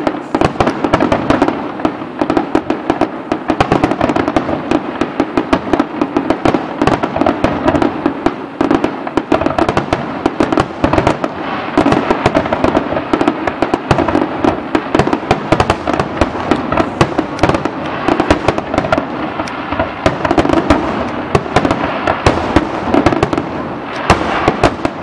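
Aerial firework shells bursting in a dense, continuous barrage of loud bangs and crackling, with many shells going off close together.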